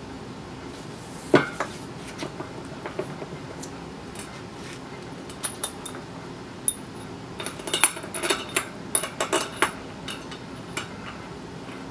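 Steel bolts and socket tools clinking as they are handled on a wooden workbench and set into a motorcycle wheel hub. Scattered metallic clicks, with a sharp one about a second and a half in and a quick run of clinks around eight to ten seconds in.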